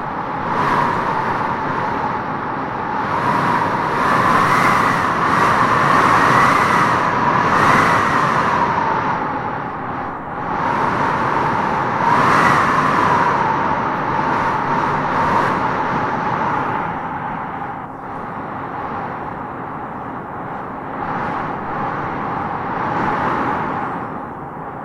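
Howling wind gusting through trees, a hissing rush with a whistling howl that rises and falls in pitch, swelling strongest several seconds in and again about halfway.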